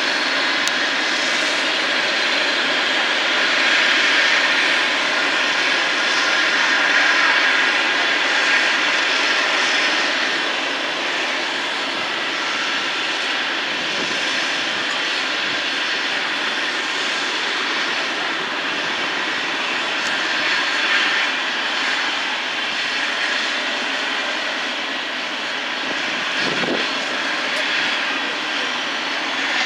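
Eurocopter EC135 air-ambulance helicopter running on the ground with its rotor turning: a steady turbine whine and rotor noise.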